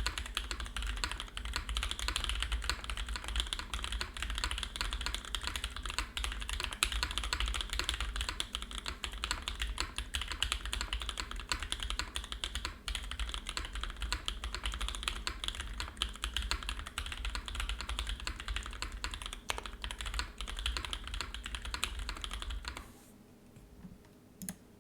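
Continuous typing on a Matrix 2.0add mechanical keyboard with lubed, broken-in NovelKeys Cream linear switches and GMK Dracula keycaps on an aluminum plate, keystrokes following one another densely. The typing stops about two seconds before the end, with one last lone keystroke after it.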